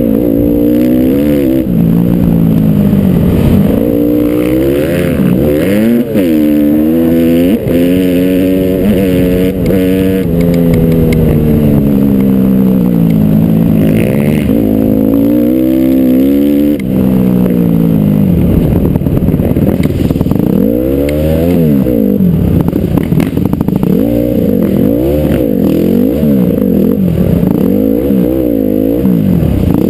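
Honda CRF450R's single-cylinder four-stroke engine running hard under the rider, revving up and dropping back again and again as the dirt bike accelerates and shifts along the trail.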